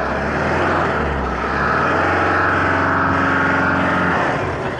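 Tata 1512 tipper truck's diesel engine working under load, its note climbing about two seconds in and holding steady for about two seconds before easing off.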